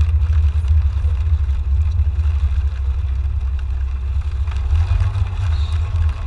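Steady low rumble of a car heard from inside its cabin as it drives slowly on snowy roads: engine and road noise.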